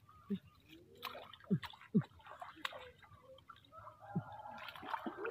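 Hands groping through a shallow muddy puddle, giving scattered small plops, drips and squelches of water and mud.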